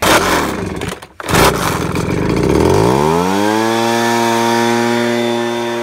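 Ryobi BP42 backpack leaf blower's two-stroke engine starting. A second or so of loud rough noise comes first, then the engine catches, its pitch rises and it settles into a steady run.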